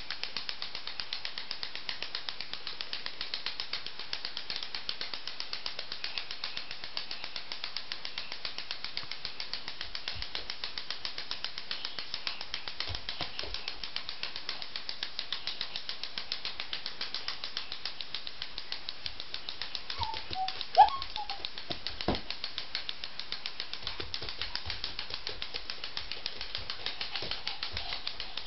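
Small wind-up toy's clockwork ticking rapidly and steadily on a hard floor. A sharp knock, then a softer one, about two-thirds of the way through.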